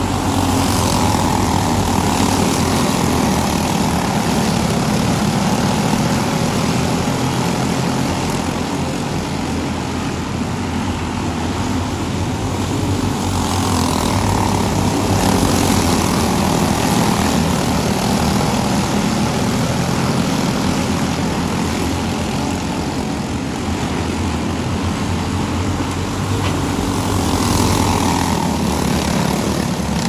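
A field of box stock racing karts running laps at race speed. Their engines make a continuous drone that rises and falls as the pack passes, about every thirteen to fourteen seconds.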